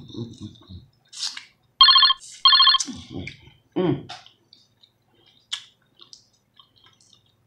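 A phone ringtone sounds twice, two short bright rings of about half a second each, close together, among the softer smacking and chewing noises of someone eating shrimp.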